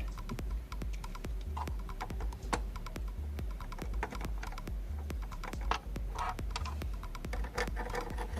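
Quick irregular small clicks and scrapes of hands and a tool working at glued connectors on a 3D printer's motherboard, over background music with a steady pulsing bass.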